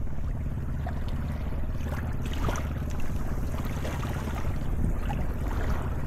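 Wind buffeting the microphone with a steady low rumble, over small waves washing gently onto a sandy shore, with soft swishes of water about two seconds in and again near the end.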